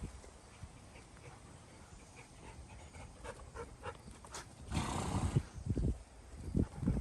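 Horses moving on dirt ground. It is quiet at first with faint clicks, then about five seconds in comes a short rushing noise, followed by a run of dull low thuds of hooves.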